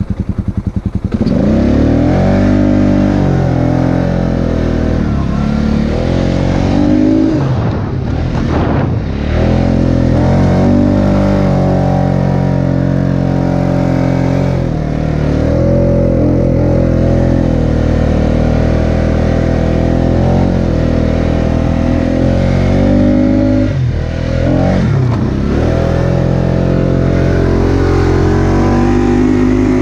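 Polaris four-wheeler's engine running hard through deep snow, its revs dropping and climbing again several times as the rider works the throttle.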